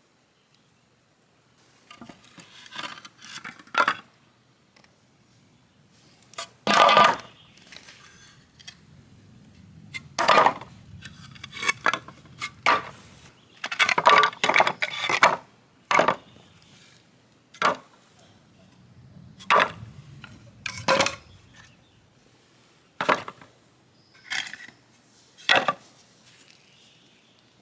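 Irregular knocks and clatters of pieces of old wood and hand tools being handled and set down, a dozen or so separate sharp impacts with pauses between them.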